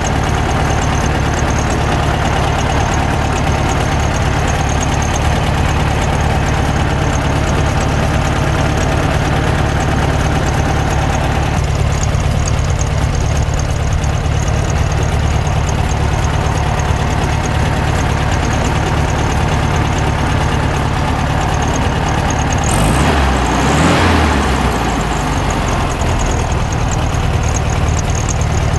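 1967 Volkswagen Beetle's air-cooled flat-four engine idling steadily, heard at its twin tailpipes, with a brief rise in engine sound about two-thirds of the way through.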